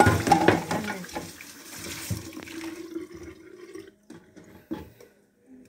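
Kitchen tap running into a sink while dishes are handled and clink. The running water stops about three seconds in, leaving a few knocks of dishes.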